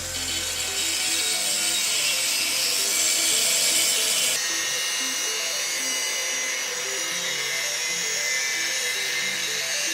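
Electric angle grinder grinding iron with a grinding disc: a steady, harsh hiss whose tone shifts slightly about four and a half seconds in.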